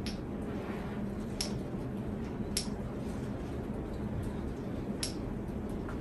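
52-inch Hunter Westminster ceiling fan running, its motor giving a steady low hum, with four sharp clicks at irregular moments.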